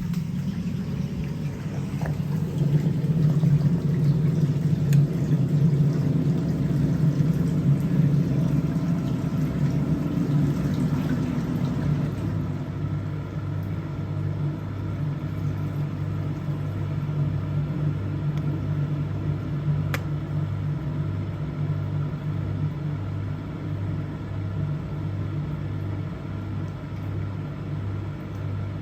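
Vulcan Dishlex Mk8 dishwasher's drain pump running with a deep, powerful hum as it pumps the wash water out. The hum is louder for the first twelve seconds, then drops a little and takes on an even pulsing.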